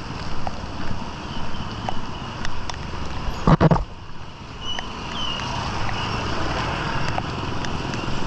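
Outdoor street ambience with a steady noisy background and a short loud bump or gust on the microphone about three and a half seconds in.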